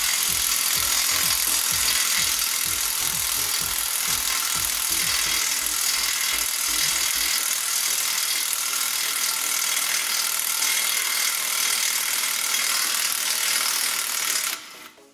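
A cordless electric ratchet runs steadily as it spins out the bottom 21 mm brake caliper bracket bolt, with a low rapid knocking during the first half. It cuts off suddenly near the end as the bolt comes free.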